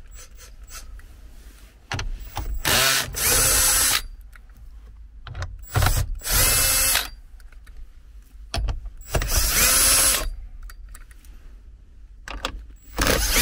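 Power drill with a socket spinning out four 10 mm bolts, in four short whining bursts a few seconds apart, each lasting a second or two.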